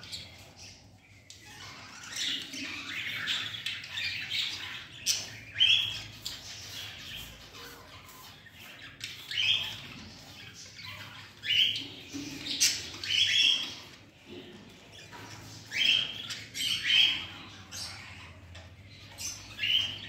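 Budgerigar squawking: about ten short calls at irregular intervals, most of them in the second half, over softer chattering.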